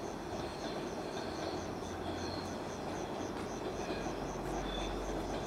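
Passenger train coaches rolling slowly away over the rails, a steady rumble of wheels on track. Over it runs a fast, even, high-pitched pulsing at about four a second.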